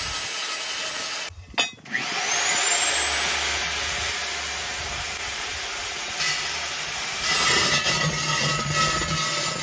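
Electric core drill with an 8-inch coring bit spinning up about two seconds in with a rising whine, then running steadily at speed. Near the end the whine drops and a lower, steadier hum takes over.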